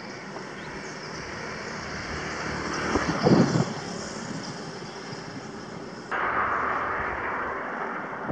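Wind and road noise from riding a bicycle, a steady rushing with a brief louder swell about three seconds in. About six seconds in the noise changes abruptly to a louder, hissier rush.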